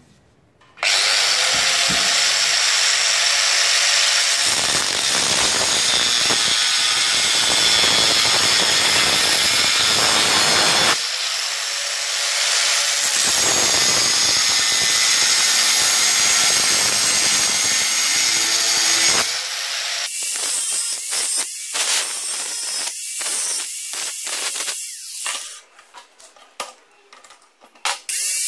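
Angle grinder with a cutting disc starting up about a second in and cutting into a metal hex nut clamped in a vise: a steady high whine mixed with grinding noise. The cut breaks off briefly a couple of times. In the last third the grinder bites in short, uneven bursts and then drops away.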